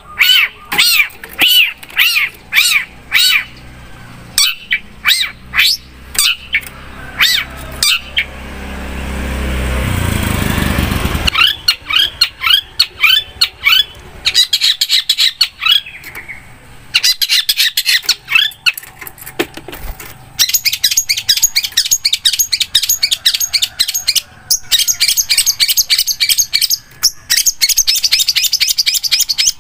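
Long-tailed shrike (cendet) singing: a quick run of repeated arched whistled notes, then a dense, rapid high chattering song. A rushing noise swells up about eight seconds in and cuts off abruptly a few seconds later.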